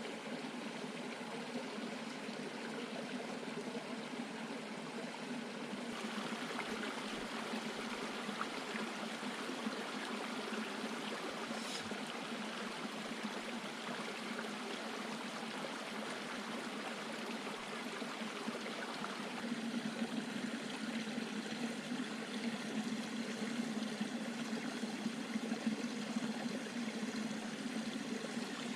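Running water of a small stream, a steady trickling rush whose texture shifts slightly a few times.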